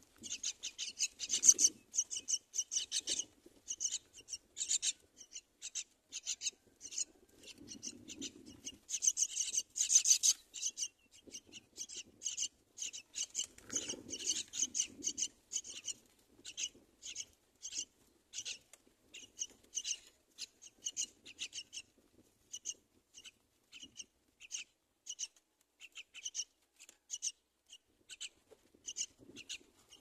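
Common myna nestlings giving a quick run of short, raspy begging calls, several a second, thinning out in the second half. Now and then there is a soft low rustle as birds shift in the grass nest.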